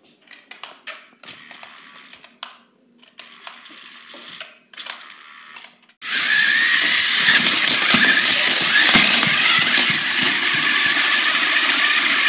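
Remote-control toy robot on a tile floor: a quiet motor hum and light clicks and knocks as it drives about. About six seconds in a loud, steady rattling whir starts suddenly as the robot spins in place very fast.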